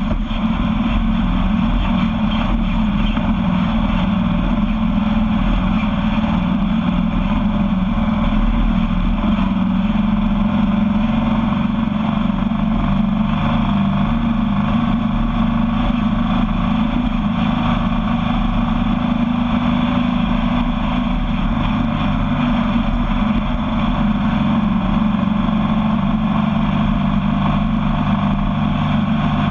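Sandrail's engine running steadily at a cruise as the buggy drives along a sandy dirt track.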